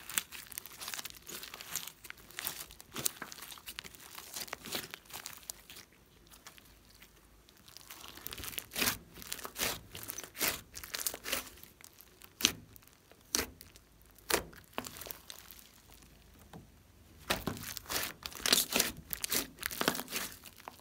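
Hands squeezing, kneading and pulling apart glossy slime with small beads mixed in, making irregular wet clicks, pops and crackles. A quieter spell comes about six seconds in, and a dense run of louder pops comes near the end.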